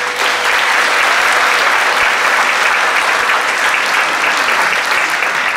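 Audience applauding, a dense steady clapping, with the last held note of the music dying away in the first half second.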